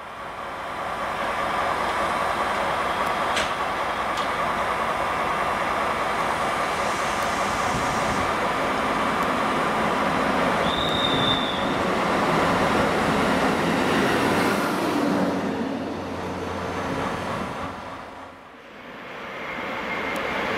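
Station rail noise from an electric-locomotive-hauled passenger train and a track maintenance machine moving at the platform: a steady rumble of wheels and running gear with a steady whine, and a short high squeal about eleven seconds in. Near the end the noise dips briefly, then rises again as another electric locomotive approaches.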